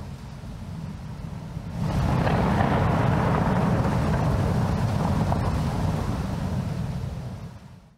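A deep rumbling noise effect that swells suddenly about two seconds in, holds, and fades out near the end.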